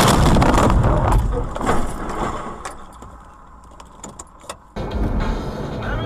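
Car collision aftermath: loud clattering and rattling inside the car as the dash camera is knocked loose, dying away over about two seconds with a few scattered knocks. About five seconds in it cuts sharply to steady road and engine noise heard from inside a moving car.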